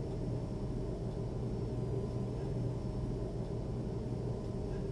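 Steady low hum and rumble with a few faint steady tones above it, unchanging throughout, with no distinct events.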